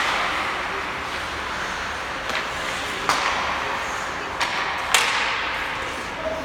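Ice hockey play: about five sharp clacks of sticks hitting the puck and the puck hitting the boards, the loudest about five seconds in, over a steady hiss.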